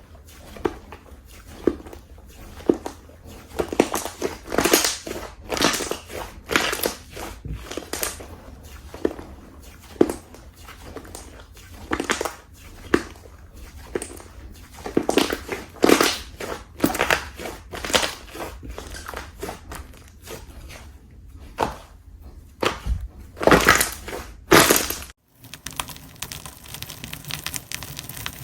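Slime being squeezed and pressed by hand, giving irregular sharp crackles and pops. About 25 seconds in it cuts off suddenly and gives way to a quieter, steady crackling.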